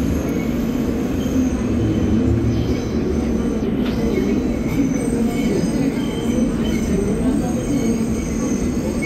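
New York City subway train running on elevated track, heard from inside the car: a steady rumble with wavering tones from the wheels and motors.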